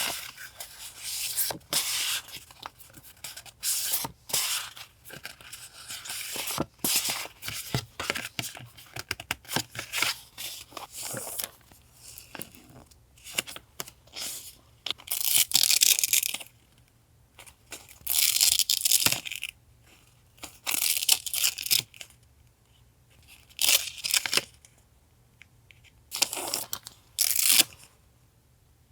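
Close-up paper handling: a series of short tearing or peeling strips of sound, each lasting up to about a second and a half, with light taps and rustles between them.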